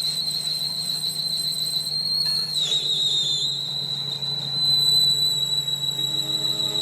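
High-pitched steady whine of a workshop power tool or machine, dipping in pitch for about a second partway through as if briefly loaded, then steady again.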